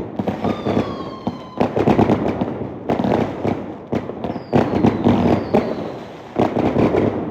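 Fireworks crackling in dense, repeated surges of sharp pops, with a few thin whistling tones that fall slightly in pitch.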